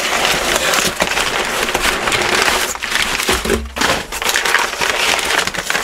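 Brown kraft packing paper rustling and crinkling as it is pulled and crumpled inside a cardboard shipping box.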